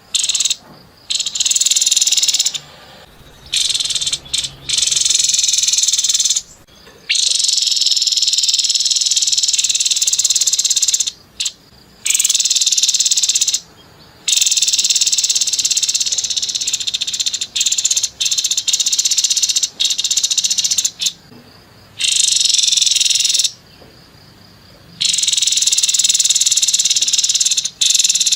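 Grey-headed babbler giving long, harsh, rapid-fire trills, high-pitched and buzzy, in bursts of a second to several seconds with brief pauses between.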